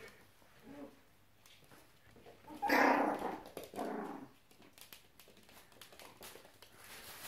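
Small white dogs playing with a plastic bag. One gives a loud, short bark about three seconds in and a weaker one about a second later, amid light crackling from the bag.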